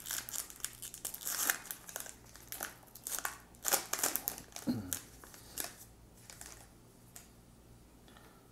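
Baseball card pack wrapper being torn open and crinkled in the hands, a run of sharp crackly rustles that dies away to faint handling of the cards after about six seconds.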